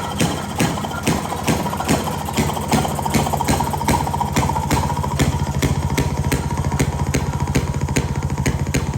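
A small engine running with a regular string of sharp firing pops that come faster after about five seconds.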